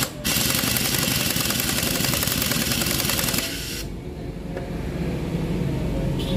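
Impact wrench hammering in rapid blows for about three and a half seconds, driving home the centre nut of a scooter's magneto rotor (flywheel) as it is refitted. It then stops, leaving a quieter steady low hum.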